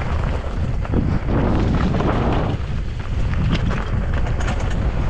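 Wind rushing over the microphone of a downhill mountain bike on a trail descent, with a steady low rumble and scattered sharp rattles and clicks from the bike.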